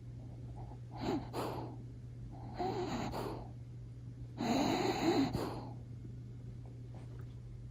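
Jack Russell Terrier snoring in its sleep: three snores about a second and a half apart, the last the longest and loudest.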